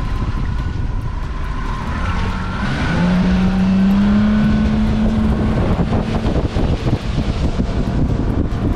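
225 hp outboard motor running with the boat under way, its pitch rising as it is throttled up about two and a half seconds in and holding high for a few seconds. Wind on the microphone and rushing water are heard throughout.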